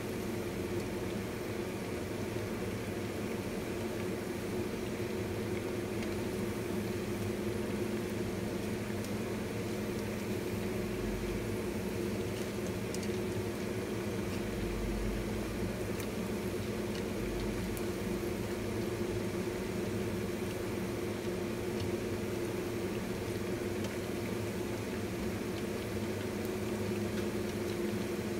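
Battered pork chops deep-frying in hot oil in a wok, a steady bubbling sizzle over a steady hum.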